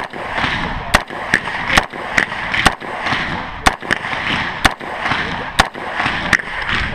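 A string of about ten gunshots from a rifle or shotgun stage, fired at irregular intervals of roughly half a second to a second, each a sharp crack.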